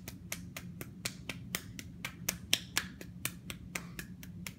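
Hands patting and slapping soft clay, a steady run of sharp slaps at about four a second that stops near the end.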